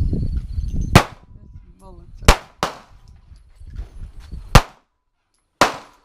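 Five gunshots at an outdoor range, irregularly spaced, two of them in quick succession in the middle, each a sharp crack with a short tail. A low rumble of wind on the microphone comes before the first shot.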